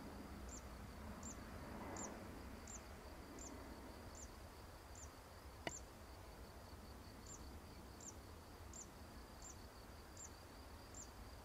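Faint outdoor ambience: an insect, likely a cricket, chirping evenly about twice a second over a steady high whine. A low background rumble runs beneath, and a single sharp click comes about halfway through.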